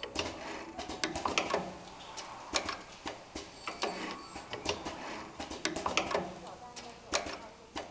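Candle wick assembly machine running, with a fast, irregular clatter of mechanical clicks and clacks as it cycles.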